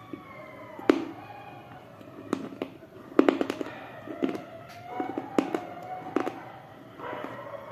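Close-miked bites and crunches of a thick, dry, white crunchy item: sharp brittle snaps come irregularly, with a quick cluster a little over three seconds in.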